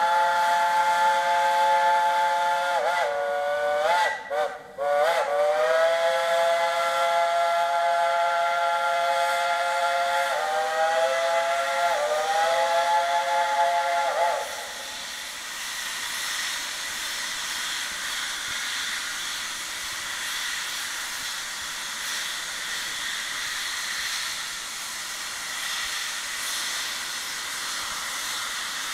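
Steam locomotive's chime whistle blowing long, multi-toned blasts, broken by two short gaps early on, with the pitch sliding up and down where blasts start and end. It stops about halfway through, and a steady hiss of steam follows.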